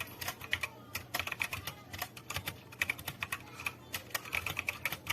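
Fast typing on an Akko 5075S mechanical keyboard with Akko Wine Red linear switches and XDA-profile PBT keycaps: a dense run of key clacks with a couple of short pauses.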